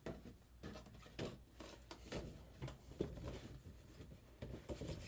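Faint rustling and a few light clicks and taps at irregular moments as a model-train box and its packaging are handled by hand.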